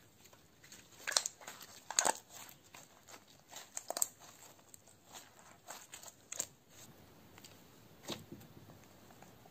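Green glitter slime squeezed and pressed by hand, giving a run of crackling clicks and pops, the loudest about one, two and four seconds in.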